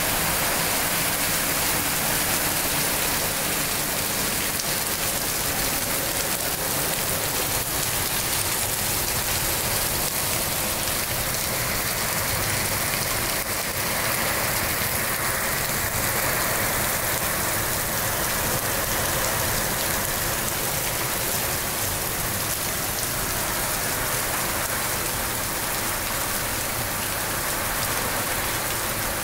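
Moderate rain falling steadily: an even, continuous hiss of raindrops on the ground and surroundings.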